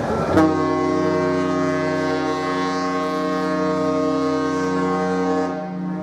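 MS Saga Ruby's ship horn sounding one long, steady blast with many overtones. It starts abruptly about half a second in and stops shortly before the end.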